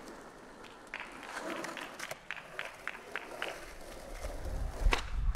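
Quick, light footsteps on concrete paving, about three a second, followed by a sharp knock near the end.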